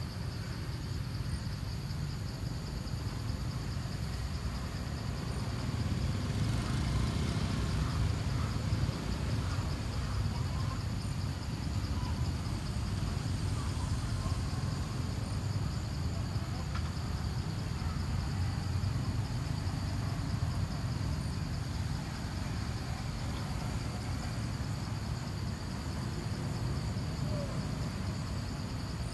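Outdoor ambience: a steady low rumble with a continuous high-pitched insect buzz over it, and a few faint chirps now and then.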